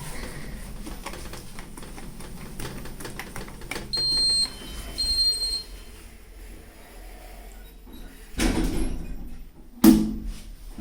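Passenger lift sounds: two short high electronic beeps about a second apart, then a rushing noise lasting over a second and a sharp bang with a short ring near the end, as of lift doors shutting hard.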